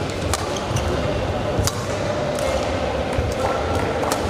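Badminton rally on a wooden-floored court: sharp racket-on-shuttlecock hits, three of them about a second or two apart, with short shoe squeaks, over a steady din of voices and play from neighbouring courts echoing in a large hall.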